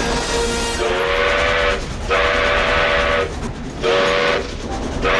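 Steam locomotive whistle blowing three blasts, the last one short, over the steady rumble of the train running on the rails.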